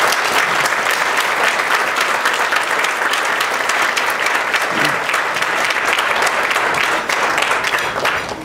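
Audience applauding: many hands clapping together in a steady, dense clatter that tails off near the end.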